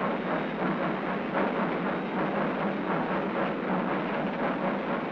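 Union Pacific 9000-class three-cylinder 4-12-2 steam locomotive working a freight train: a steady, loud exhaust and running rumble with a repeating beat, heard on a thin old film soundtrack.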